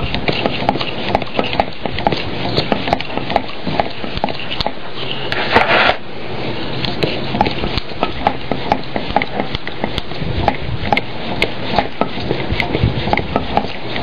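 Topeak Pocket Rocket Master Blaster mini pump being stroked by hand on a bicycle tyre valve: a steady rush of air with a click on each stroke, about two to three strokes a second. A brief, louder hiss comes about five and a half seconds in.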